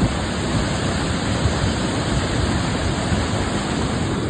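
A rain-swollen river in flood, its fast water rushing in a steady, dense roar.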